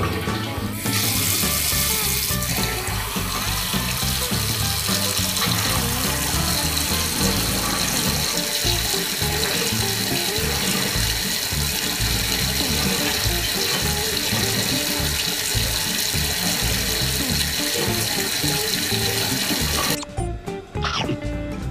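Water running from a bathroom mixer tap into a ceramic sink, a steady rush that turns louder about a second in as the stream thickens, then stops suddenly near the end; background music plays throughout.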